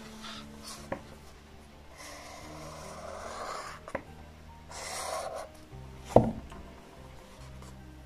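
Felt-tip highlighter scratching across a book page in two strokes, with small clicks and one sharp tap about six seconds in, over soft background music with held notes.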